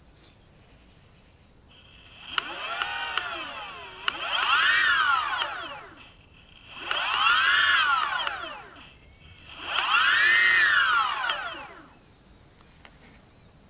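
Boosted Board electric skateboard's drive motors whining up and down in pitch four times as they spin up and slow down, with a few sharp clicks; the owner suspects the clicking comes from a bent motor shaft.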